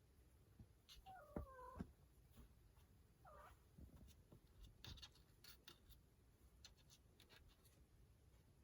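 A cat gives two short, faint meows with sliding pitch, one about a second in and another about three seconds in, with light scattered taps and clicks around them.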